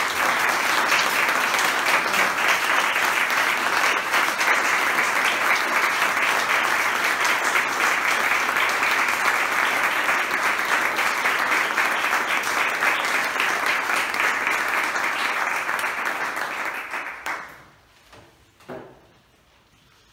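A small seated audience applauding, dense steady clapping that fades out a few seconds before the end.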